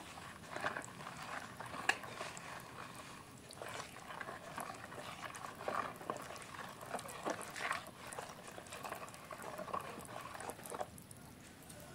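Spatula stirring glutinous rice flour into a wet mixture in a plastic bowl: irregular soft scrapes, taps and squelches as the batter is worked.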